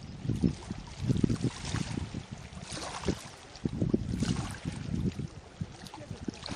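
Wind buffeting the microphone in irregular low rumbling gusts, with a faint hiss above them.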